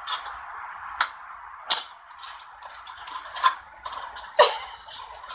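Action-film soundtrack playing from a TV: a steady hiss broken by half a dozen sharp, shot-like cracks, several of them sweeping down in pitch like sci-fi blaster fire.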